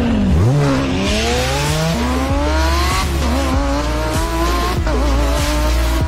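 Lamborghini Aventador's V12 engine accelerating hard, its pitch climbing and dropping back at each upshift, over music with a deep steady bass.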